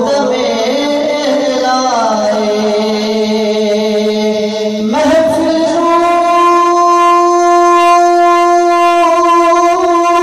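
A man's unaccompanied devotional chanting, amplified through a microphone, in long drawn-out held notes. One note slides down and holds for a few seconds, then about halfway through his voice leaps to a higher note and holds it steadily.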